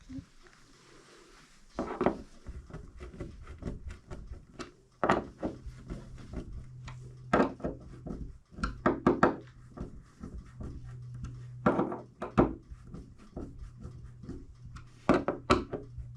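Irregular wooden knocks, thunks and clicks as a wooden bi-fold closet door is handled and fitted on its hinges, over a steady low hum.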